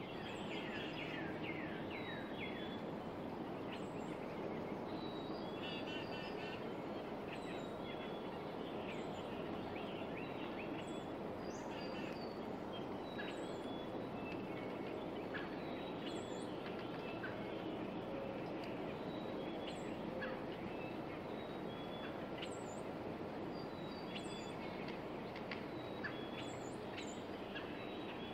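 Wild birds calling and singing, short chirps, whistled notes and quick falling trills scattered throughout, over a steady, dense background rush.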